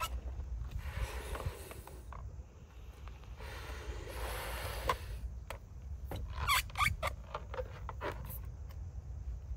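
Two large clear balloons being blown up by mouth: breaths rushing into them, then rubber squeaking and rubbing under the hands in a cluster of short squeaks and clicks from about halfway in. A steady wind rumble on the microphone runs underneath.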